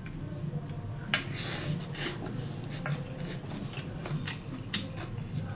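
Eating sounds: wooden chopsticks and a spoon clicking and scraping against a stainless-steel tray of salad and noodles, in many short irregular clicks with a longer scrape about a second and a half in, alongside chewing.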